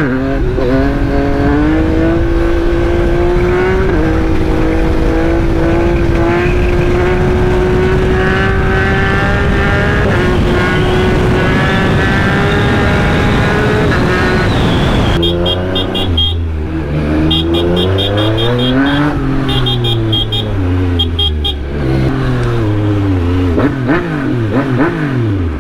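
Motorcycle engine under way, holding a steady, slowly rising note for about fifteen seconds. After that the revs rise and fall again and again as the throttle is rolled on and off.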